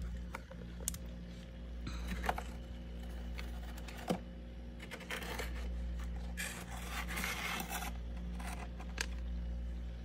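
Fingernails scraping and breaking soft frost off the plastic tank of a frosted humidifier, in several scratchy bursts with a few light clicks, over a steady low hum.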